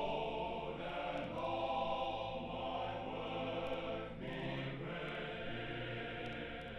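A choir singing slow, held chords as background music.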